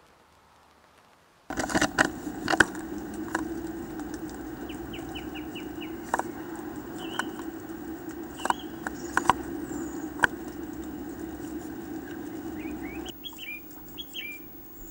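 Great tit moving about inside a wooden nest box: sharp taps and scratches of claws on the wood and wing flutters, with a few short high calls. A steady low hum starts suddenly about a second and a half in and drops away near the end.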